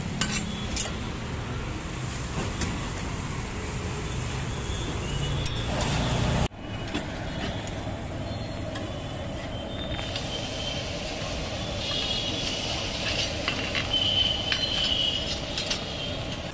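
Roadside traffic noise: a steady rumble of passing vehicles, with a few clicks and brief high-pitched tones in the second half.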